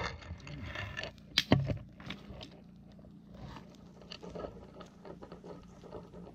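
Dry twigs being handled, snapped and laid onto a small kindling fire, with scraping and crackling. Two sharp snaps about a second and a half in are the loudest sounds.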